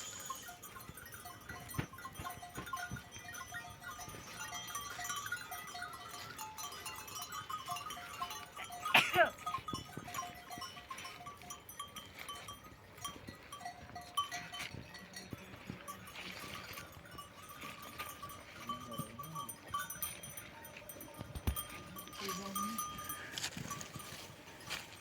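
Livestock bells clinking irregularly as a flock moves about, with one louder brief sound about nine seconds in.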